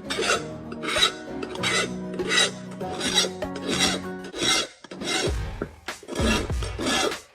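Hand tool rasping in even back-and-forth strokes, about ten of them, roughly one and a half a second, with background music under the first half.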